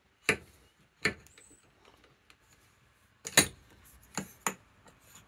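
About five sharp metallic clicks and knocks, the loudest a little past halfway, as a motorcycle fork stanchion with its bushings is handled and fitted into the fork slider.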